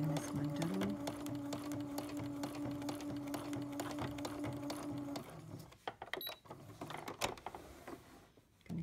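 Domestic sewing machine running steadily for free-motion embroidery, its motor humming and the needle stitching rapidly as the hooped fabric is guided under the embroidery foot. It stops about five seconds in, followed by a few scattered light clicks.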